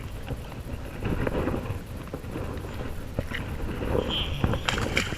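Irregular light knocks and taps from handling a bull redfish and a tangled fishing line on a kayak, over a low rumble of wind on the microphone.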